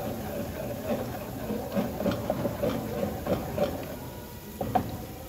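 Wooden pestle beating and whipping akara bean paste in a clay mortar, in short strokes about three a second, with oil sizzling in the frying pan underneath.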